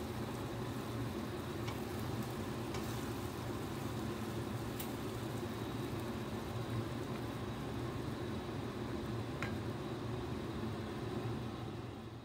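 Tofu, quail eggs and mushrooms in oyster sauce simmering and sizzling in a frying pan, with a wooden spatula stirring through it, over a steady low hum.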